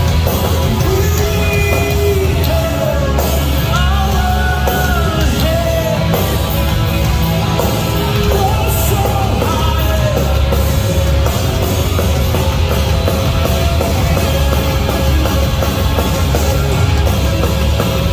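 Live heavy rock band playing at full volume, with distorted guitars and drums and a sung vocal line over them for roughly the first ten seconds.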